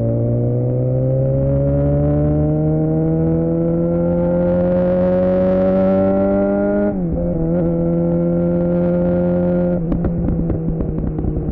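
Suzuki GSX-R600's inline-four running through a Yoshimura R11 exhaust under way, the note climbing steadily as the bike accelerates, then dropping abruptly about seven seconds in, as at an upshift, and holding steady. Near the end there is a spell of irregular crackling.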